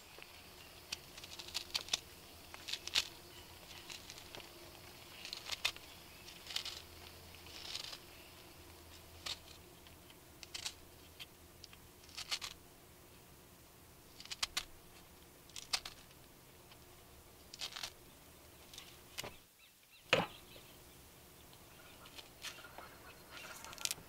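A knife cutting and tearing the rind off a citrus fruit: irregular crisp cuts and crackles of peel. About twenty seconds in there is one loud sound sweeping steeply down in pitch.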